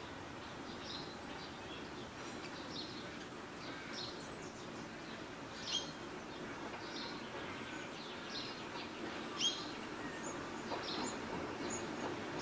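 Birds chirping in short high calls, about one a second, over steady outdoor background noise. Near the end the low rumble of an approaching train starts to rise.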